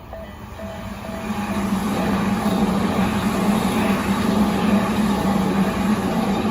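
TOMIX N-gauge Tobu 100 series Spacia model train running on the track, a steady motor hum with wheel noise. It grows louder over the first couple of seconds, stays loud, then eases off near the end as the train passes.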